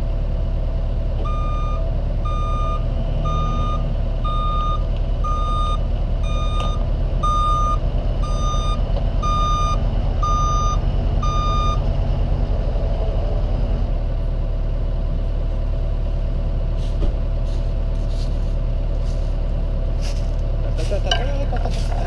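Dump truck's reversing alarm beeping evenly, about one beep every three-quarters of a second, as the truck backs up; the beeping stops about twelve seconds in. An engine runs steadily underneath, and a few sharp clicks come near the end.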